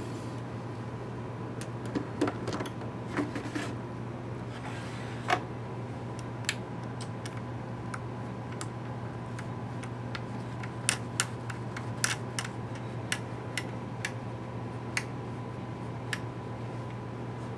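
Sharp single clicks of rotary switch detents and lever switches being turned on a Tektronix Type 3B3 time base plug-in's front panel. The clicks come irregularly, bunched together about two-thirds of the way through, over a steady low hum.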